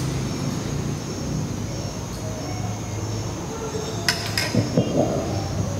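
Steady low hum of the hall, with a short burst of light clinks of small hard objects about four seconds in, followed by a few soft knocks.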